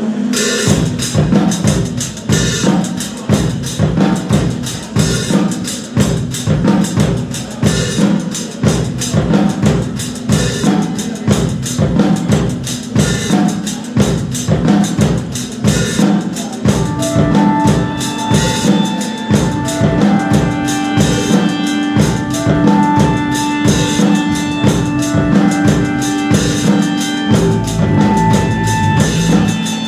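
Live rock band playing, led by a drum kit beating a fast, steady rhythm of bass drum and snare. About halfway through, held melodic notes come in over the drums.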